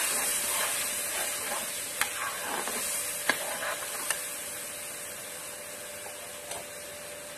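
Onion-tomato-ginger-garlic purée sizzling in hot mustard oil in a kadhai while a slotted spatula stirs it, clicking against the pan a few times in the first half. The sizzle slowly fades with the gas flame turned low.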